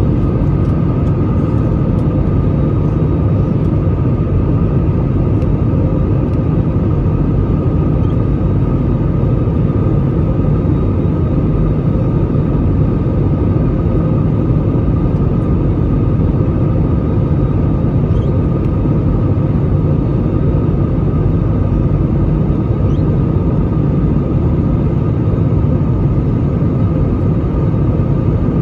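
Steady cabin noise inside an Airbus A320 descending on approach with flaps extended: a loud, even rumble of engines and airflow with a steady whine over it.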